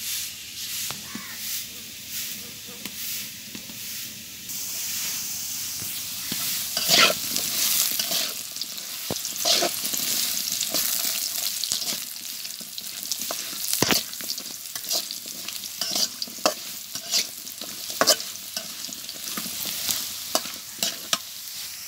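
Small potatoes sizzling steadily in hot oil in a black iron wok. A metal spatula scrapes and clinks irregularly against the pan as they are stirred.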